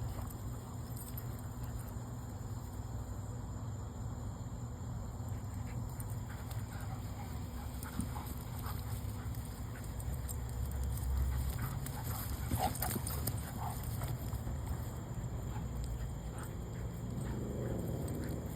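A dog's small sounds over a steady low rumble, with scattered light clicks and scuffs in the middle and a wavering whine near the end.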